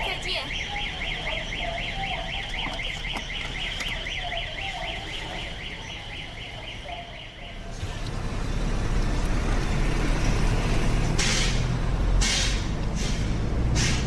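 Cicadas buzzing in a rapid, evenly pulsing rhythm of about four pulses a second, cutting off about eight seconds in. A low traffic rumble follows, with a few short hissing bursts near the end.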